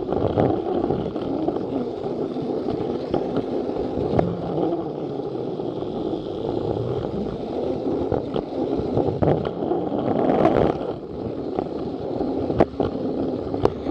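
Plarail battery-powered toy train running along plastic track, with a steady whir and rattle from its small motor and wheels. Several sharp clicks come through as it runs.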